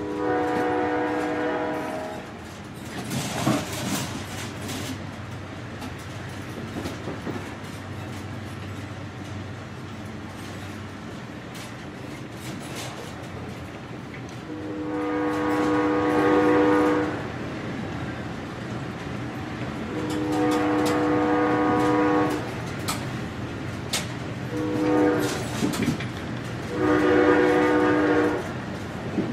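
Train horn sounding a multi-note chord five times: a blast of about two seconds at the start, then, in the second half, two long blasts, a short one and another long one. Underneath runs the steady rumble and clatter of the passenger carriage moving along the track, heard from inside the carriage.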